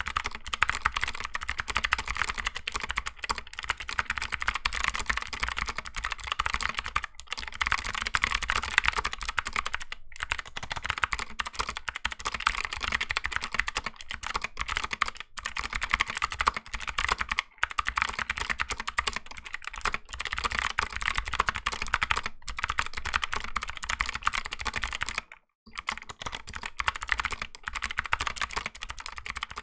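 Continuous fast typing on a 60% mechanical keyboard fitted with Gateron optical blue clicky switches, a dense stream of sharp key clicks with a brief pause about twenty-five seconds in.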